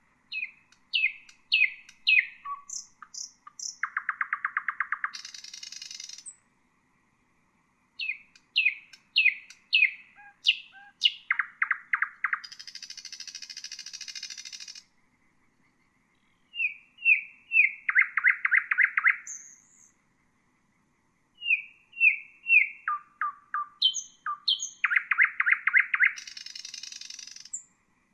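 Nightingale singing: four song phrases with short pauses between them. Each phrase is a string of quick whistled notes and a fast, even trill, and most end in a harsh, buzzy rattle.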